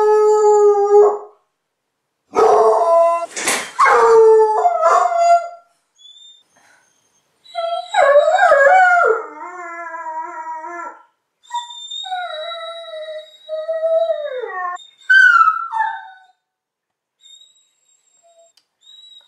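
A dog howling and whining in a string of drawn-out calls, several sliding down in pitch at the end.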